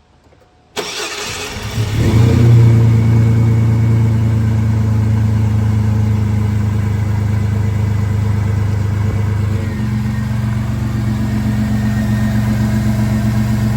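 GMC Sonoma's 4.3 L V6 starting: a second or so of cranking, then it catches with a brief rise in revs and settles into a steady, smooth idle, its note shifting slightly about ten seconds in. It runs smooth, cold, with its random misfire cured by a relearned new crank position sensor.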